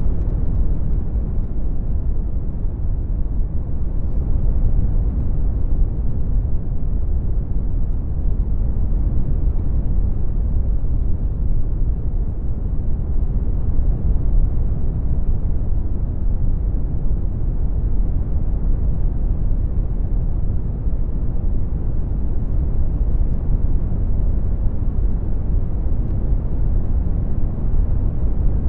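Synthesized brown noise: a steady deep rumbling hiss, strongest in the lows and thinning out toward the highs, shifting only slightly in level.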